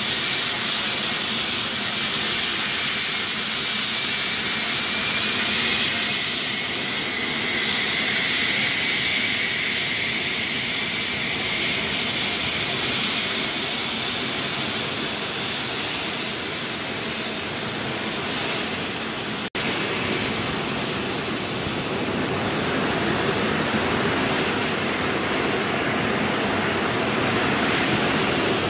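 Jet Provost's Viper turbojet running on a ground run, a high whine over a steady rushing jet noise, the whine rising slowly in pitch as the engine spools up.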